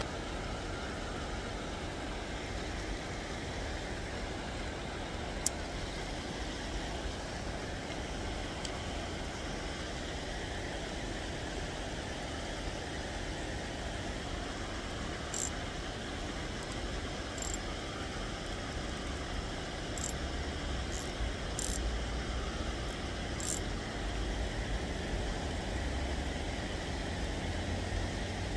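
Steady outdoor background noise, a low rumble under an even hiss, with a sharp click about five seconds in and a few faint ticks in the second half.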